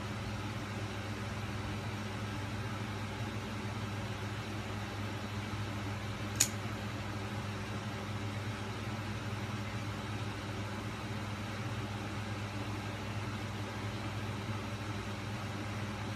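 A steady low hum, and a single sharp metal click about six seconds in from the blade of a Les Voorhies Model 10F folding knife being worked in the hand.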